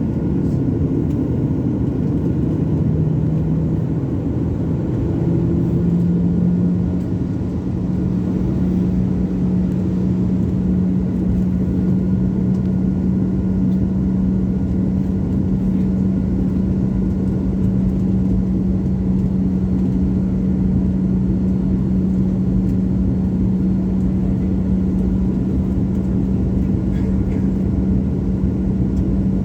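Jet airliner's engines running with a steady rumble and a low hum that rises slightly in pitch about four seconds in, then holds steady.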